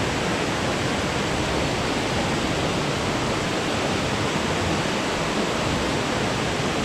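Waterfall's water pouring down non-stop, a loud, steady, almost ear-deafening rush heard close to the fall.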